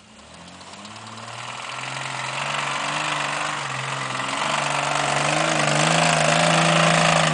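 Off-road truck engine running under load and growing steadily louder, with a mechanical knocking from a connecting rod that has started to fail. In the moment it was heard as the ring-and-pinion gears disintegrating.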